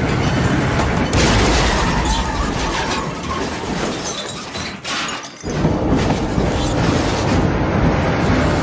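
Loud crashing, rumbling noise of a vehicle collision, with music underneath. It cuts out for a moment about five seconds in, then resumes.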